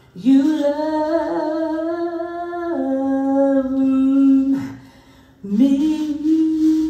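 A lone voice singing long held notes without accompaniment: a note scooped up from below and held, stepping down to a lower note partway through, then a short break and another note scooped up and held.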